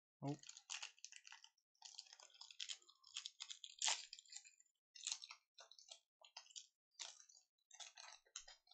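Plastic-foil wrapper of a 1990-91 SkyBox trading card pack crinkling and tearing as it is opened by hand, a run of irregular crackles and rustles.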